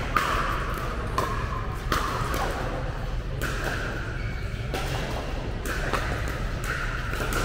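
Pickleball paddles striking the hard plastic ball: about six sharp pops at uneven intervals, each ringing briefly in the large echoing hall.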